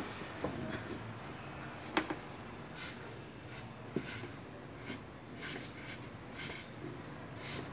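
A dog nosing a red rubber chew toy across a tiled floor: faint short scuffing sounds about once a second, with two sharp knocks of the toy on the tile, one about two seconds in and one about four seconds in.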